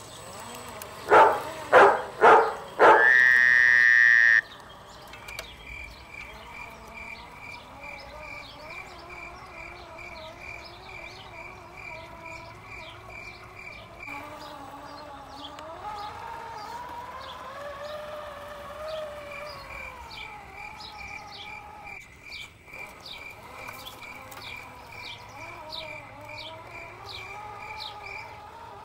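Scale RC Land Rover Series III 109 crawler driving: near the start four short, loud, horn-like toots and then one longer one. After that a soft electric-motor whine rises and falls with the throttle, under a steady high chirp repeating about three times a second and scattered bird chirps.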